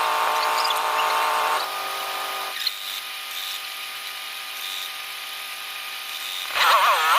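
2000 GMC 2500 pickup's engine running at a steady idle after a no-spark, no-start repair. It gets a little quieter about two seconds in. Near the end it is briefly revved, its pitch wavering up and down, then falls back to idle.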